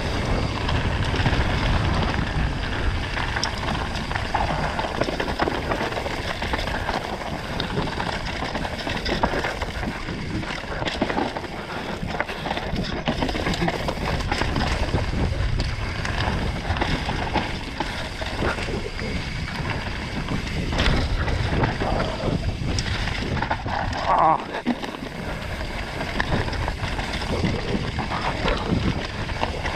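Mountain bike descending a rough dirt forest trail at race pace, heard through an action camera: wind buffeting the microphone, tyres running over dirt and loose stones, and the bike rattling and knocking over every bump.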